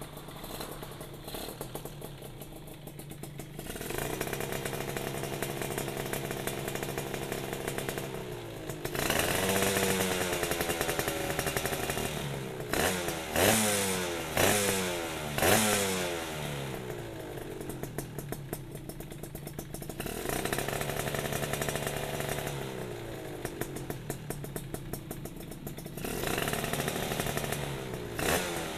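Suzuki Satria 120 'hiu' two-stroke single-cylinder engine with an underslung CMS ABRT20 exhaust, revved on the stand: it idles, holds a steady raised speed, then is blipped several times in quick sharp rises and falls before settling back to idle and picking up again near the end.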